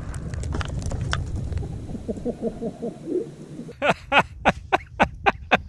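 The low rumble of a tannerite explosion fading out, with scattered clicks of falling debris. A little under four seconds in, a man starts laughing in quick bursts, about four a second.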